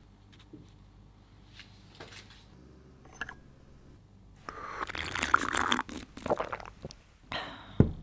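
Someone slurping sips of hot chocolate from a mug: a crackly, wet stretch of about two seconds, then a few shorter sips, and a sharp knock near the end.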